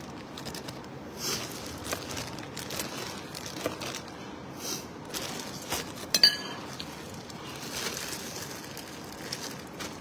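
Thin plastic food bags crinkling and rustling as food is picked from them by hand, with scattered small crackles and clicks and a sharp crackle about six seconds in, amid chewing.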